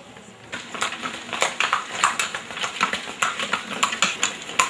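Horse-drawn cart going by: hooves and the cart clattering in a quick, irregular run of knocks and rattles that starts about half a second in.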